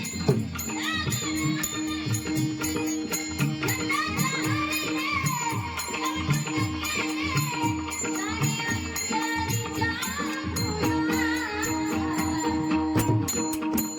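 Marathi bhajan music: a woman's voice sings a wavering melody over a steady held drone and fast, jingling hand percussion.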